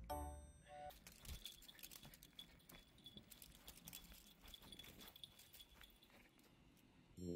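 Near silence: faint rustling and light clicks of a cat stepping about on grass, with a faint thin high tone coming and going. The last notes of background music die away in the first second.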